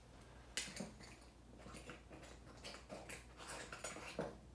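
Perforated metal lid of a glass salt shaker packed with resin diamond-painting drills being picked up and screwed on: a sharp click about half a second in, then faint scattered ticks and light scraping.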